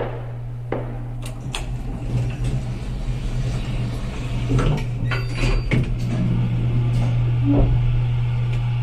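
A steady low hum under scattered knocks, clicks and rustling, with a short ringing tone about seven and a half seconds in.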